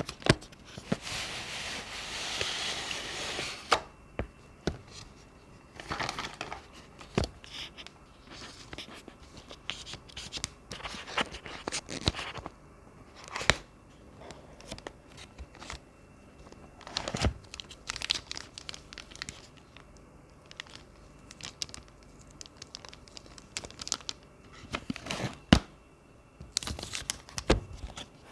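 Packaging being opened and handled by hand: a few seconds of tearing, rustling noise near the start, then scattered clicks, taps and short rustles of cardboard and plastic.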